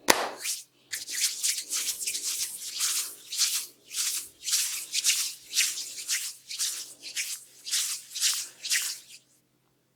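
Hands rubbing briskly over hair and scalp in a head massage: a rhythmic run of short scratchy swishes, about two or three a second, stopping shortly before the end.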